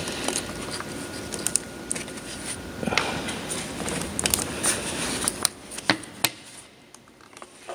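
Gloved hands fitting a metal EGR valve into place on an engine and connecting its pipe: rustling, with scattered sharp clicks and light knocks of metal and plastic parts. It goes quieter after about six seconds, leaving a few isolated clicks.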